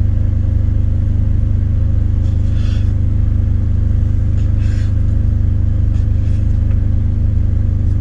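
Steady low drone of an idling diesel engine, with a couple of light knife-on-cutting-board sounds as canned biscuits are cut.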